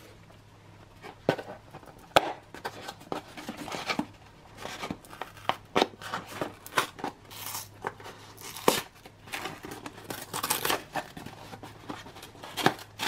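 Cardboard ration box being torn open by hand: irregular tearing and scraping of card with sharp snaps, the loudest near the end as the flap comes free.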